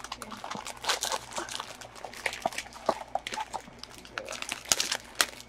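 Foil blind bags crinkling and tearing as two of them are pulled open by hand: a run of irregular crackles and rustles.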